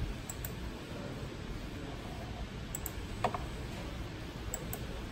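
Computer mouse buttons clicking: a few soft double clicks, a second or two apart, over a faint steady hum.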